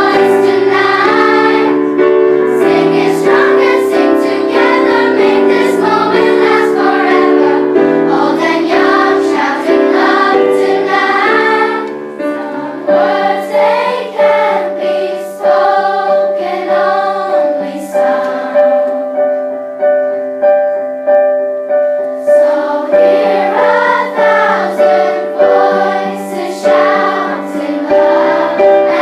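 Children's choir singing in unison with piano accompaniment. About halfway through, the music settles into an even pulse of a little over one beat a second under the voices.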